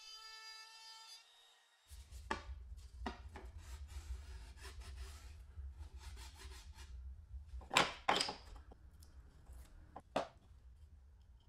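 Background music fades out about a second in. Then a wooden strip and MDF board are handled on a wooden worktop: irregular knocks, scrapes and rubbing of wood on wood, with two loud knocks about eight seconds in and another near ten.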